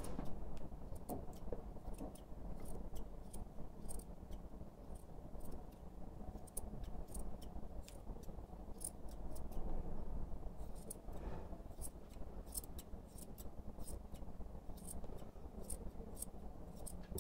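Steel grooming scissors snipping through a poodle's thick curly coat: many quick, irregular snips.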